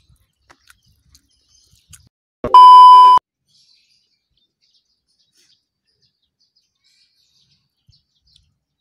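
One loud electronic beep, a single steady high tone lasting under a second, about two and a half seconds in. Faint high chirps sound around it.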